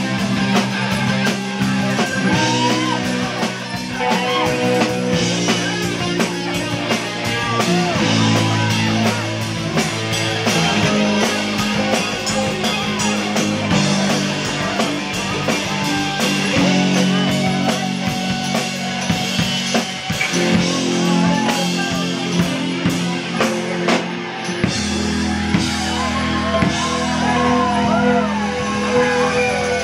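Live rock band playing: drum kit, electric and acoustic guitars, with a steady beat. A deeper bass part comes in near the end.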